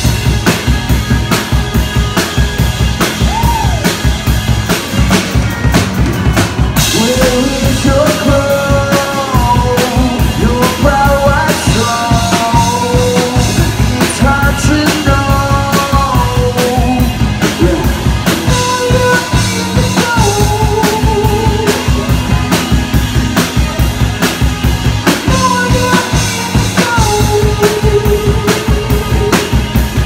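Live rock band playing: a drum kit keeps a steady beat with kick and snare under electric guitars and bass. A wavering melody line comes in about seven seconds in and carries on.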